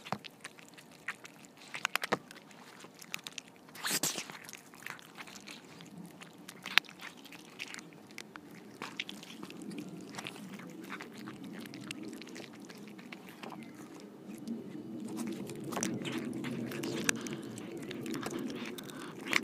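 Cats chewing and crunching carp and dry cat food right next to a small microphone on the bowl. Irregular sharp crunches throughout, growing denser in the second half.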